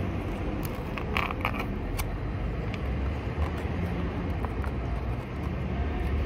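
Steady street traffic rumble, with a few short crinkles and crackles between about one and two seconds in from the foil lid of a cat food tray being peeled back.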